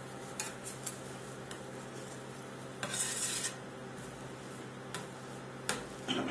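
Metal scraper spatula scraping and tapping on a frozen steel ice pan while spreading rolled ice cream base thin: a few light clicks, one longer scrape about three seconds in, and more clicks near the end, over a steady low hum.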